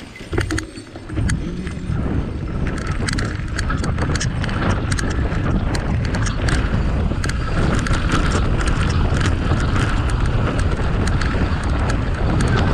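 Mountain bike ridden over a bumpy dirt trail: a steady rumble of tyres and wind on the microphone, full of quick rattling clicks from the bike, building up in the first couple of seconds.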